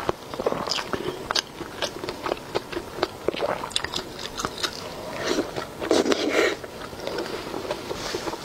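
Close-miked eating of spicy cold pot skewer food soaked in chili oil: wet tearing, biting and chewing with many small smacks and clicks. A louder, longer wet mouth sound comes about five to six and a half seconds in.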